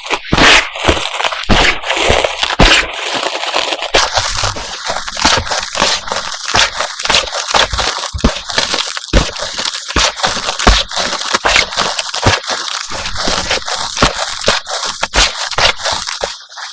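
Reformed gym chalk being crushed and crumbled, played back sped up: a rapid, dense run of crunching and crackling that cuts off suddenly at the end.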